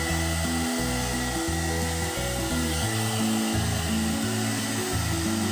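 A one-step hot air brush (hair dryer and styler) running steadily: an even rushing hiss with a thin, steady high whine. Background music with a changing bass line plays over it.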